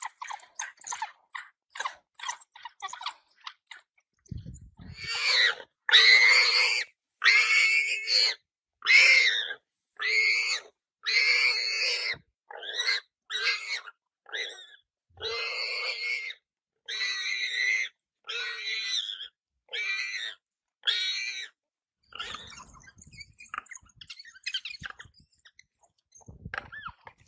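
A warthog squealing, about sixteen harsh, loud squeals of half a second to a second each in a quick irregular series, starting about five seconds in and stopping after about twenty seconds. Faint ticking and crunching come before and after the squeals.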